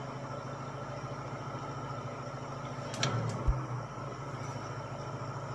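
2019 Mazda3's four-cylinder engine idling steadily on starting fluid sprayed into the intake, a sign that the failed low-pressure fuel pump in the tank is not supplying fuel. A short click and a brief rise in the engine sound come about three seconds in.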